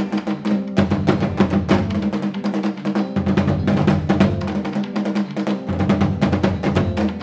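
Live band music driven by fast, dense drumming on tall traditional hide drums struck with sticks, over a steady bass line.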